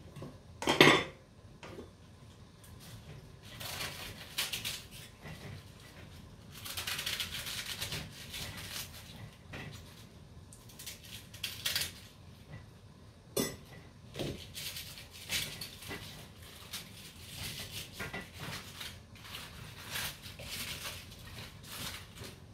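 Savoy cabbage leaves being cut by hand with a small knife, in irregular bursts of crisp crunching and rustling as the pieces drop into a plastic colander. A sharp clatter about a second in and a few lighter knocks of the knife and bowl.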